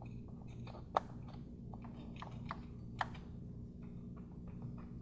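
Faint scattered clicks and light taps of a gloved hand handling and fitting small parts on a car engine, with two sharper clicks about one and three seconds in, over a steady low hum.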